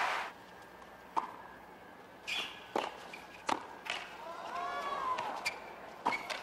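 Applause breaking off at the start, then a tennis rally on a hard court: sharp pops of the ball off the rackets and the court, about five over a few seconds, against a quiet crowd.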